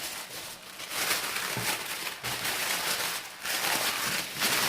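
Packaging material rustling and crinkling as it is handled, in irregular, uneven swells.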